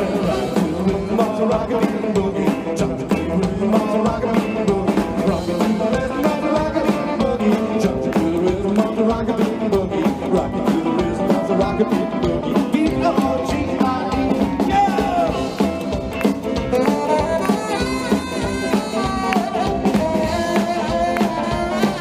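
Live rock'n'roll band playing an up-tempo boogie number on electric guitars, upright bass and drums, with a steady beat.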